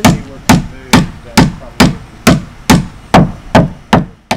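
A steady series of sharp knocks, a little over two a second and about ten in all, each one hard and quickly dying away, ending abruptly near the end.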